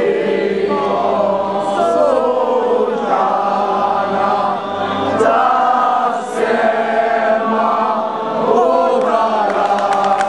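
Crowd of worshippers singing a hymn together, many voices at once.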